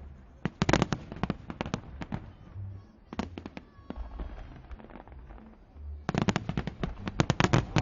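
Fireworks exploding: clusters of rapid sharp crackling pops over deep low booms, with a quieter gap in the middle and a dense run of crackling starting about six seconds in.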